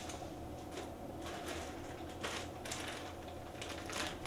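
Soft, intermittent rustling and scraping of tools and packaging being handled, over a steady low hum.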